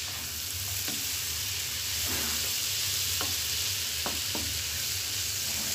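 Boiled black chickpeas and shredded cabbage sizzling in oil in a nonstick pan, stirred with a wooden spatula that scrapes and clicks against the pan a few times.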